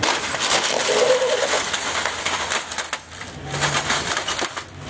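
An Epson printer's plastic casing cracking and crunching under the tyre of a Chevrolet Silverado 2500 HD pickup: a dense run of snaps and crackles over the first three seconds, then a few more cracks near the end.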